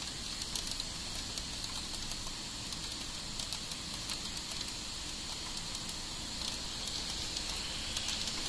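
Heavy downpour: a steady rain hiss with dense crackling patter of drops.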